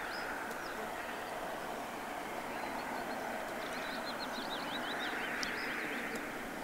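Outdoor waterside ambience: small birds chirping and twittering in quick high notes, in a cluster near the start and again from about three seconds in, over a steady faint hum.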